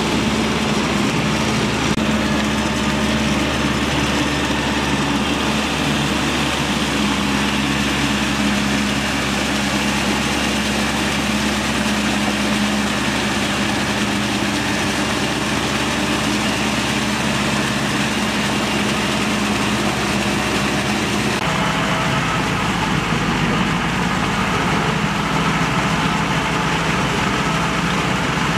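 Tractor engines running steadily under load while rear-mounted rotary tillers churn through flooded rice-paddy mud. The engine note changes abruptly about three-quarters of the way through, to a second tractor with more low rumble.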